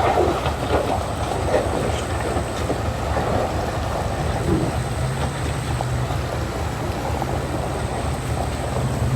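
A vehicle engine running steadily as a low drone under outdoor road noise. The drone grows a little stronger about five seconds in.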